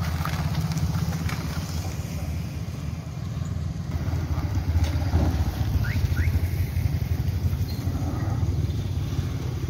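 Road vehicles running with a steady low engine rumble: a car close by and a motorcycle riding past about four to five seconds in.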